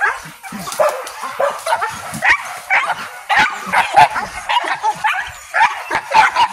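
Hunting dogs barking and yelping in quick, overlapping calls, several a second, without a break.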